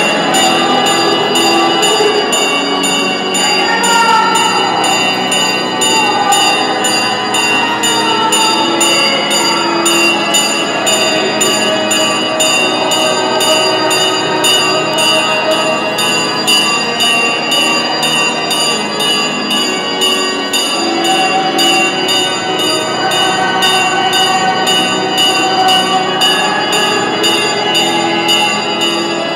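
Bells ringing continuously in rapid, evenly repeated strokes, with crowd voices underneath.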